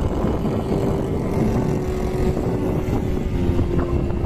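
Engine of a radio-controlled aerobatic model airplane droning steadily overhead, its pitch sagging slightly lower, with wind buffeting the microphone.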